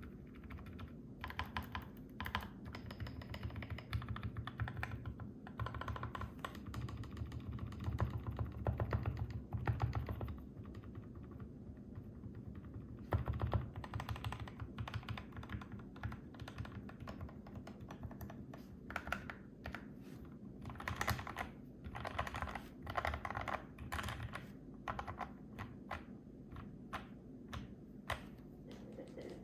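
Typing on a BM65 mechanical keyboard with lubed linear Gateron Yellow switches and PBT keycaps: fast runs of keystrokes with short pauses. Some stretches carry a deeper, heavier key sound, likely from the lubed screw-in stabilized keys such as the spacebar.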